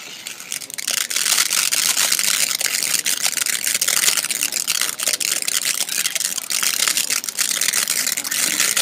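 Winda Snow Cone firework fountain spraying sparks with a steady hiss, building up over the first second, shot through with many sharp crackles.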